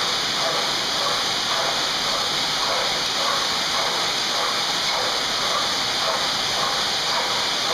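SpeedStroke GYM kayak ergometer's flywheel spinning with a steady rushing noise, pulsing about twice a second with the paddle strokes.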